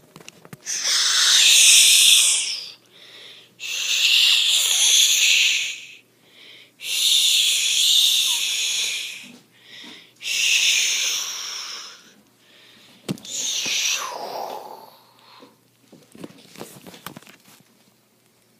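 Long, breathy, hissing screeches made with a person's voice, four in a row of about two seconds each, then a shorter, weaker one about thirteen seconds in.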